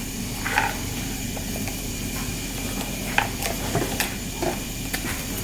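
Steady hiss with a few faint taps and scrapes from stirring the slime powder mixture in its container.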